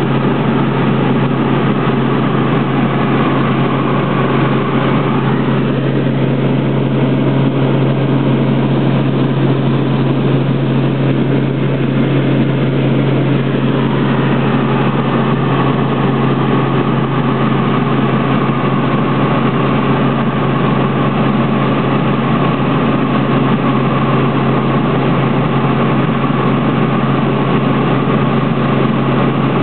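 Helicopter in flight, heard from inside the cabin: the engine and rotor make a loud, steady drone with a strong low hum.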